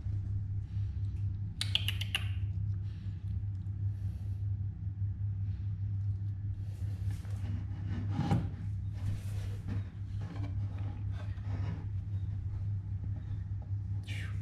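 Steady low hum with occasional faint rustles and light knocks, as of a small animal stirring on a towel in a wooden drawer and a hand moving near it.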